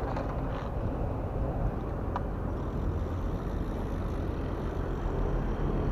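Steady low rumble of road traffic, with one faint tick about two seconds in.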